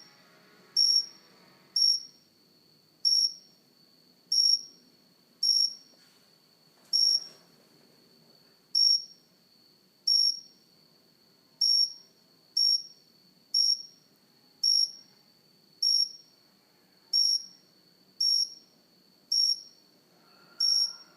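A cricket chirping close up: short, high-pitched chirps repeated roughly once a second.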